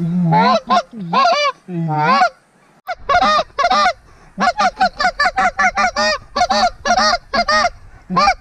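Hand-blown goose call: three drawn-out moans breaking upward into honks, then a fast run of clucks, about three a second, calling to approaching Canada geese.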